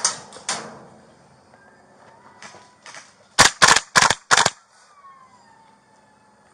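Airsoft gun shots. Two sharp cracks come near the start, then two fainter ones, then four much louder shots in quick succession about three and a half seconds in.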